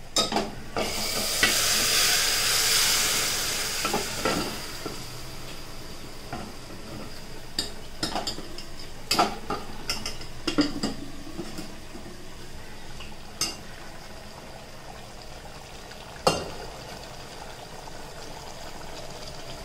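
Cooked beef tipped into hot masala in a pot, sizzling loudly for the first few seconds. Then a quieter sizzle goes on while a steel spoon stirs, knocking against the pot now and then.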